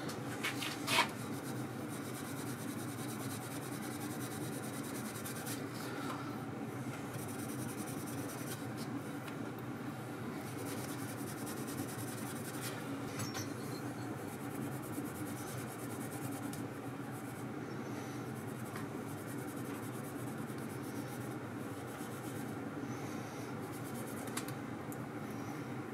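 Steady, continuous scratchy rubbing: a small air compressor pump part being scrubbed clean by hand with an abrasive pad to remove built-up gunk.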